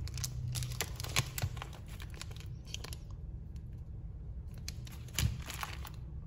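Clear plastic bags crinkling and rustling as bagged phone housings are picked up and handled. It comes in bunches of crackles: busy for the first two seconds or so, quieter in the middle, then again near the end.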